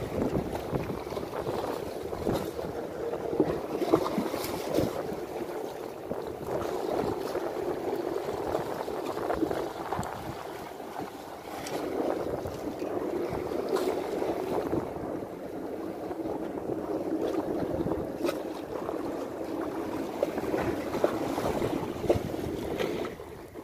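Sea waves washing and splashing against concrete breakwater blocks, a steady rushing with a brief lull about ten seconds in, mixed with wind on the microphone.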